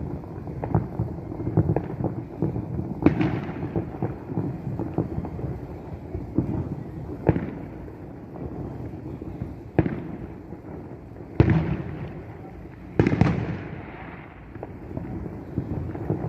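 Fireworks show: a continuous rumble of overlapping booms, broken by a sharper loud bang every couple of seconds. The biggest bangs come about 3 s and 13 s in, each followed by a rolling echo.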